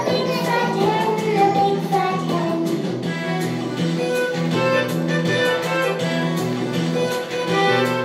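Recorded children's song: singing over an instrumental backing for the first couple of seconds, then an instrumental melody.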